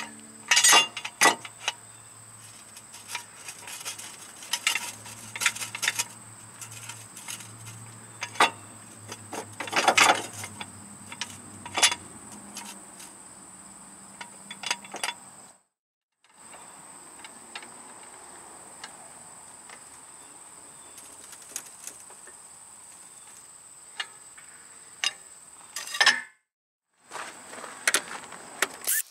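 Scattered metallic clinks and knocks of hand tools and car parts being worked under a car, some sharper than others. A steady high insect drone runs underneath.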